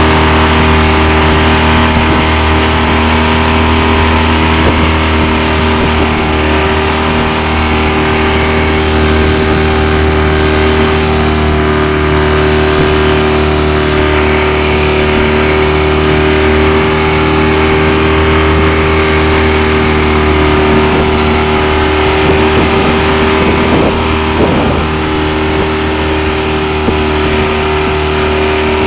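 A small fishing boat's motor running steadily at an even trolling speed, its pitch unchanging, over a constant rush of water along the hull.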